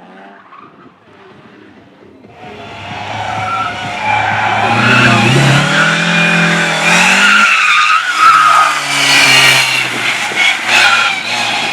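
A slalom competition car driven hard through the course, its engine revving up and down through the gears while its tyres squeal through the turns. The car closes in about two seconds in and is loud from then on.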